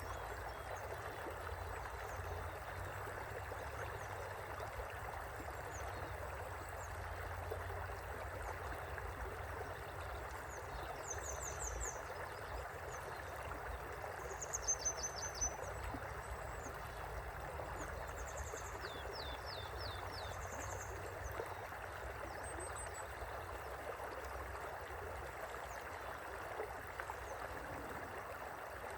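River flowing gently: a steady, even rush of water. A few short high chirps break in around the middle.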